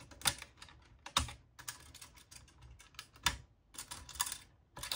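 Irregular small clicks and taps of hard plastic: a screwdriver and fingers working at the plastic housing and clips of a modem being taken apart.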